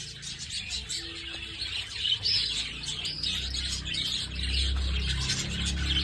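Many budgerigars chirping and chattering together: a steady stream of short, high twitters.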